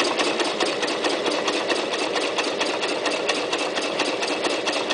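Toyota Super Jeans J34 sewing machine running steadily at speed, its motor hum carrying a rapid, even clicking of needle strokes as it stitches upholstery fabric along a welt cord.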